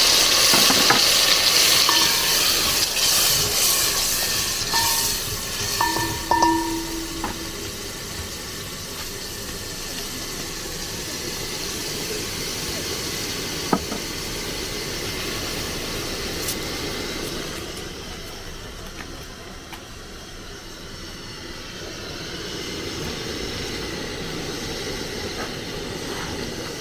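Food sizzling in a hot cooking pot, with a few clinks of a utensil stirring. The sizzling is loudest for the first several seconds, then settles to a quieter hiss, with one sharp knock about halfway through.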